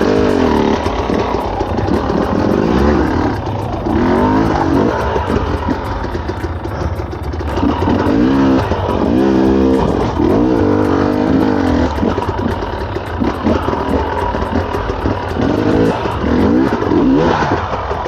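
Enduro dirt bike engine revved up and down in repeated blips, on a bike whose gearbox has just slipped into neutral with a loose, non-engaging shift.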